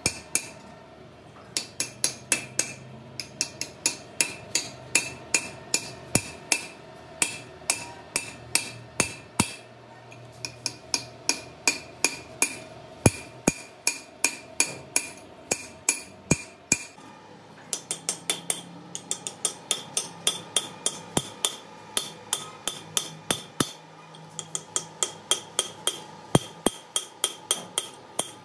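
Hammer striking a steel punch set in a wheel-hub stud hole, driving out a broken wheel stud: sharp metal-on-metal blows at about three a second, each with a brief ring, in runs broken by a few short pauses.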